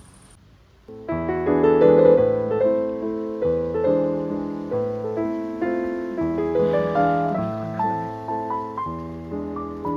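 Background piano music, starting about a second in: a melody over chords.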